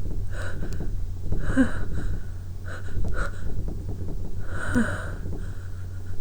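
A woman sniffing and breathing hard through her nose, stung by lemon balm as she tries to bring on a sneeze. She gives a string of short wheezy breaths, with sharper gasping inhalations about a second and a half in and again near five seconds, over a steady low hum.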